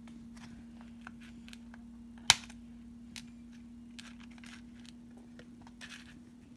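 Hands handling a CD in the clear plastic tray of a digipak: light plastic clicks and scrapes as the centre hub is pressed and the disc is lifted out, with one sharp, much louder click about two seconds in. A steady low hum runs underneath.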